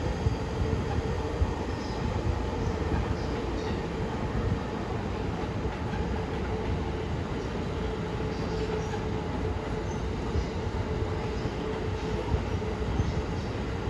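A ten-car E231 series 1000 electric commuter train pulling out and rolling past at low speed: a steady rumble of wheels on rail with a constant hum over it, and a few scattered clicks of wheels over rail joints.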